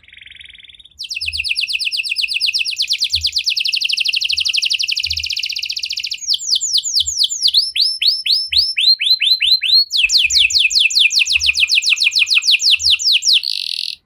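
Red-factor canary singing a long song of rapid trills. A very fast rolling trill gives way, about six seconds in, to a run of slower down-slurred notes, then another fast trill that cuts off suddenly at the end.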